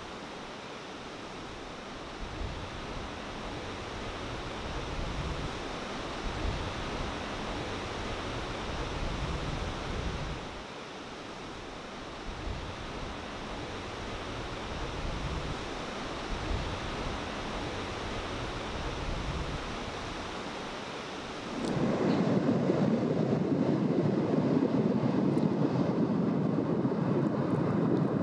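Ocean surf: a steady wash of breaking waves, with irregular low gusts of wind on the microphone. About 21 seconds in it switches abruptly to a louder, fuller rush of surf.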